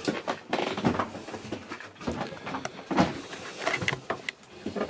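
Soft footsteps, knocks and clicks of someone moving through a small wood-panelled boat cabin, with rustling handling noise between them.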